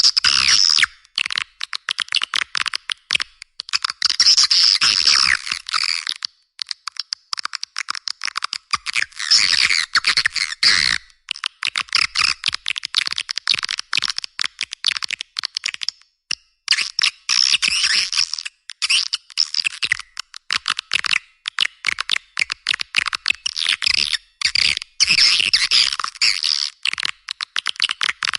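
Swiftlet lure-call recording (suara panggil walet): edible-nest swiftlets chittering and twittering in rapid, dense trains that come in bursts of a few seconds separated by short pauses, with the bass filtered out.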